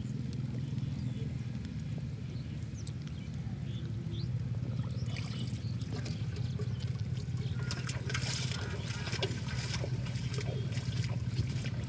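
Water sloshing and splashing as people wade and grope by hand in chest-deep water, busiest near the end, over a steady low rumble.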